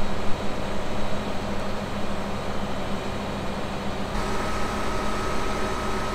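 Mobile crane's engine running steadily. About four seconds in the sound shifts and a steady high whine joins the engine.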